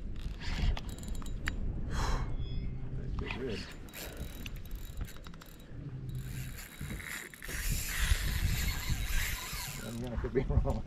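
A spinning reel working against a heavy fish that won't budge: the drag ratchets in runs of clicks as line is pulled off, and the reel's gears rattle as the handle is cranked. A louder, hissier stretch comes near the end.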